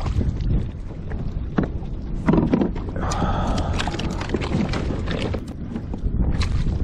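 Wind rumbling on the microphone over water lapping against a plastic kayak hull, with scattered small knocks and a splash about three seconds in.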